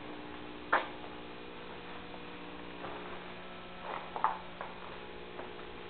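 Steady electrical mains hum, with a few brief knocks and rustles: one just under a second in and a small cluster around four seconds.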